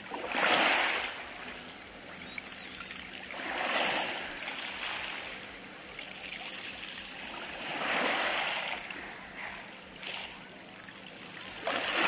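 Small sea waves washing in over a pebble beach and draining back through the stones, swelling and fading about every four seconds.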